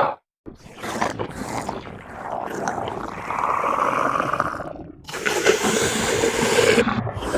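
Monster growl sound effect: rough, raspy creature growls and snarls in several drawn-out breaths, broken by short pauses, the strongest one about five seconds in.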